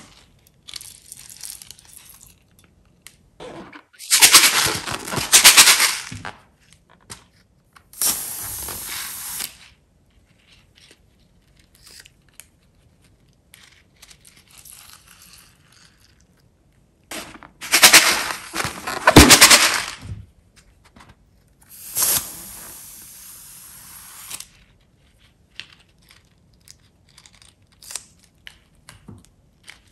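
Plastic packaging being crinkled and torn open by hand in four loud spells, with small handling clicks between them.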